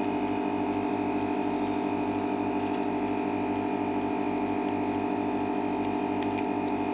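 Steady electrical hum made of several held tones, with a fast, even pulsing.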